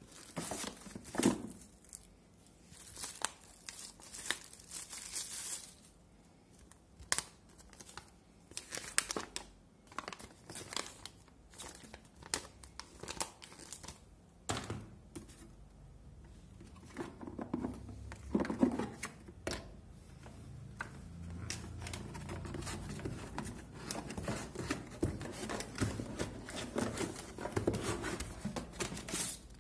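Plastic wrapping crinkling and cardboard packaging rustling in irregular bursts as a boxed machine is unpacked by hand, with scattered light knocks.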